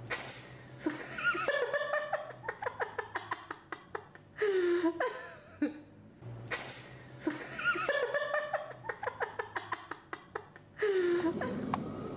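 Recorded laughing and chattering from a toy monkey, the same sound played twice: a sudden cry, a fast run of short "ha" bursts, then a falling squeal.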